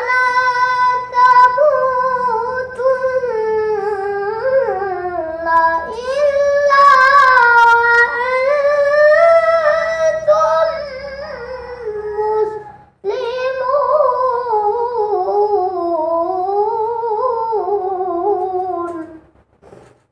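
A young boy reciting a Quranic verse in melodic tilawah style, his high voice held in long, ornamented phrases that slide up and down. The verse ends 'wa lā tamūtunna illā wa antum muslimūn'. He breaks for breath about 13 seconds in, then sings a second phrase that ends about 19 seconds in.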